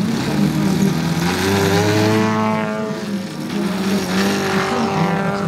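Several radio-controlled 3D aerobatic model aeroplanes flying together, their engines and propellers running at different pitches that slide down and back up as the throttles change.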